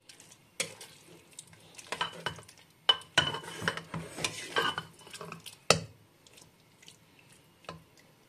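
A plastic spoon stirring sliced carrots in a thick spiced sauce inside a pressure cooker, with wet scraping and irregular clicks and knocks of the spoon against the pot. The stirring is busiest in the first six seconds, then goes quieter.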